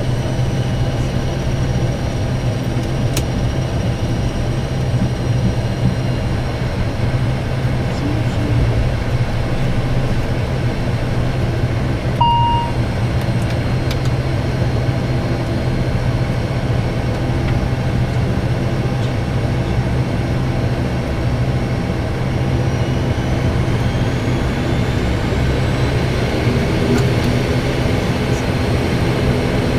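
Steady drone of an ATR airliner's Pratt & Whitney Canada PW127-series turboprop engines, heard inside the cockpit. A short electronic beep comes about twelve seconds in, and a faint rising whine follows in the second half as the second engine's propeller speeds up.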